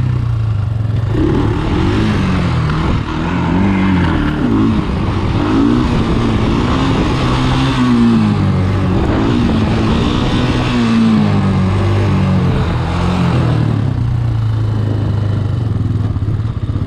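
Sport ATV engine revving up and down in waves as the throttle is worked to hold a long wheelie, over a steady low engine hum.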